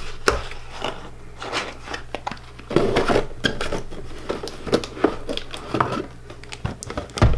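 Plastic packaging rustling and crinkling with small clicks and knocks as parts are handled and unwrapped, ending in a louder thump near the end.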